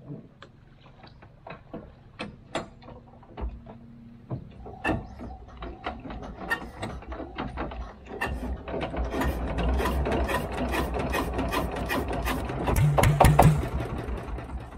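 Rapid, irregular clicking and rattling that grows denser and louder, over a low rumble that starts about three seconds in and swells near the end.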